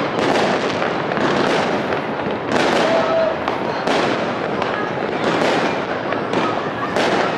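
Many fireworks rockets and firecrackers going off close by: sharp bangs every half second to a second over a continuous crackle of more explosions.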